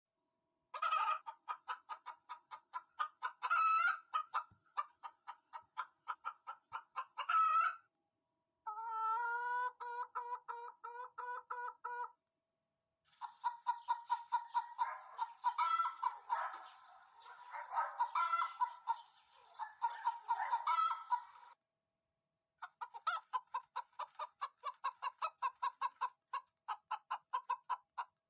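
Hens clucking in rapid runs of short calls, in four separate recordings cut together with dead silence between them. The second, a little after eight seconds, is a more drawn-out, clearly pitched repeated call. The third is denser, with several hens clucking over one another.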